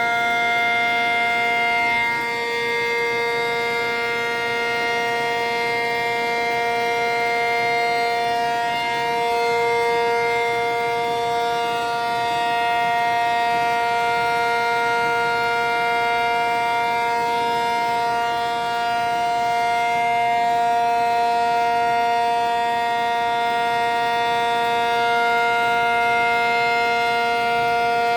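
A siren sounding a steady, continuous tone at one pitch, with no rise or fall, taken for an air-raid alarm.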